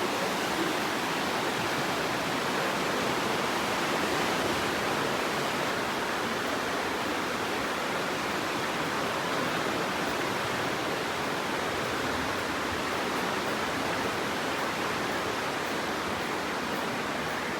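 The River Aare rushing through its narrow gorge: a steady, even noise of fast-flowing water.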